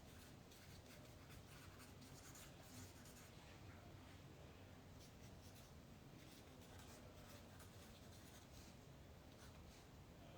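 Faint scratching of a pen signing an autograph on a poster, in quick strokes that come in runs with short pauses between them.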